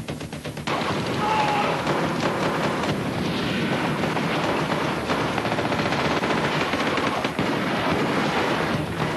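Rapid gunfire in a film shootout: many shots in quick succession, starting suddenly about a second in and keeping on without a break.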